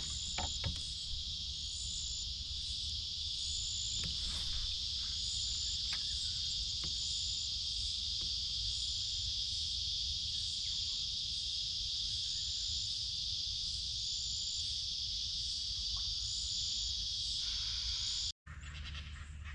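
Steady, dense chorus of insects buzzing high, with a faint higher chirp repeating about once a second; it stops abruptly near the end.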